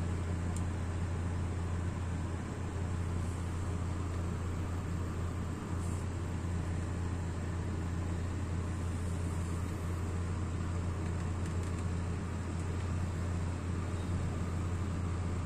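Chinese Model 2608 kerosene stove burning with a steady flame: an even low rumble with hiss that does not change.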